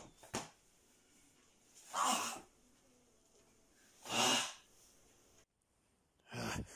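A man sneezing twice, about two seconds apart, each sneeze a short noisy burst. A couple of light knocks come at the very start.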